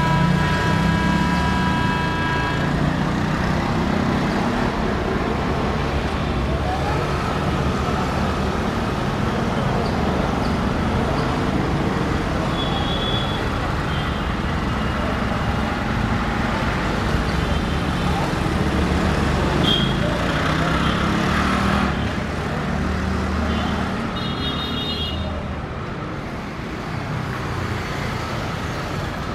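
A horn with several steady tones sounds for about two and a half seconds at the start, then a steady rumble of city traffic and the slowly approaching electric train, with a short, higher horn toot about 24 seconds in.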